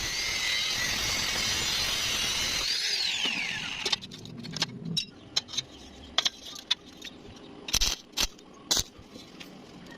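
A power tool runs with a loud, high hiss for about four seconds, then winds down with a falling whine. After that come a series of sharp metallic clicks and clinks.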